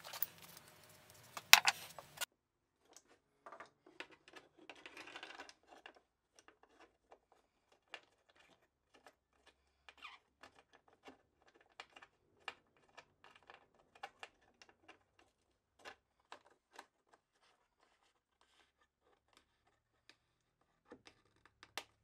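Wooden T-track clamp parts, a bolt and a star knob being handled and fitted into an aluminium T-track. A sharp clack comes about a second and a half in, followed by scattered light clicks and taps, a brief scrape, and a few more clicks near the end.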